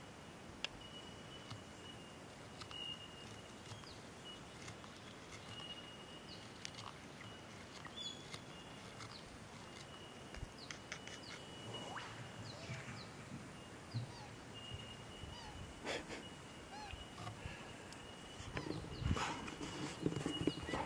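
Quiet outdoor ambience of birds calling, with scattered short chirps and whistles, over a thin, steady, high tone that keeps breaking off and returning. A few soft clicks and scrapes of knife-on-wood whittling are heard, and there is louder handling noise near the end.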